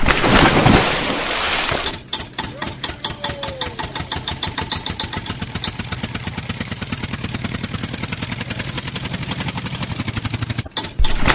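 Vehicle engine sound effect: a loud, noisy start for about two seconds, then the engine running with a fast, even chug that cuts off near the end, followed by another loud burst.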